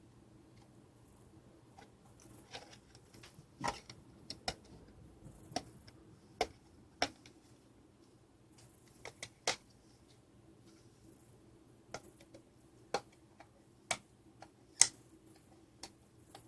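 Irregular sharp clicks and taps of a screwdriver and the plastic case of a D-Link DAP-1650 range extender being handled while its case screws are taken out, the loudest tap near the end.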